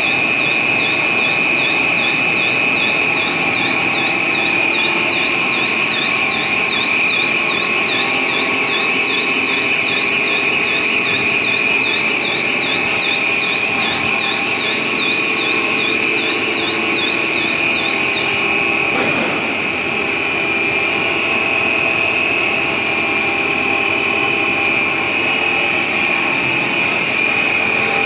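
Stretch film rewinding machine running: a steady mechanical hum with a high whine. Over it, a higher warbling tone rises and falls about twice a second, then stops about 18 seconds in, followed by a short knock.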